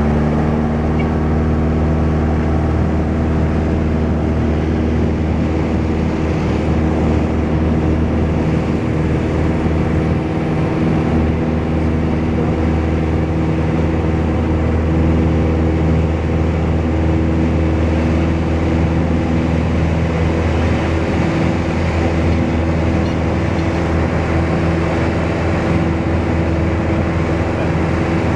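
Piper PA-28-181's four-cylinder Lycoming engine and propeller at full takeoff power, heard from inside the cockpit: a loud, steady engine note that holds level through the takeoff roll and lift-off.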